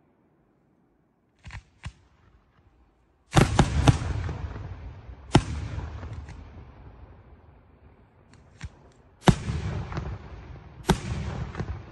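Aerial firework shells bursting: after a near-silent start come two small pops, then a quick cluster of loud bangs and three more single bangs, each trailing a long rolling echo.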